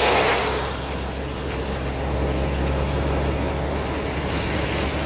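A car driving on a wet road, with a steady engine and tyre drone. An oncoming car passes with a wet hiss that fades within the first half second.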